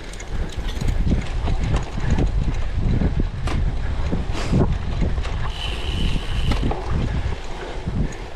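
Wind buffeting the microphone over the rattle and knocking of a cyclocross bike riding over rough ground, with a brief high squeak about six seconds in.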